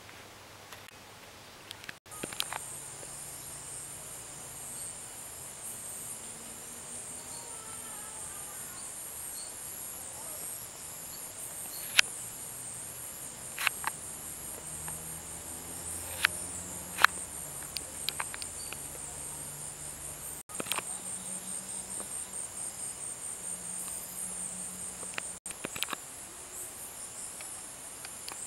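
Insects chirping in a steady, high-pitched, fast-pulsing chorus, broken by a few sharp clicks or knocks.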